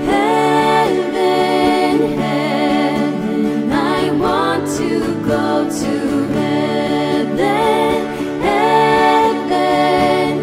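Singing of a children's Christian song over steady instrumental accompaniment, in phrases with short breaks between lines.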